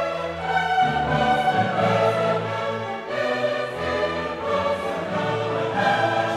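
Orchestral background music with sustained notes that change about once a second.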